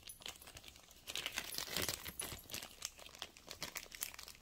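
A bag being crinkled and rustled in the hands: a dense crackle that picks up about a second in and is loudest through the middle.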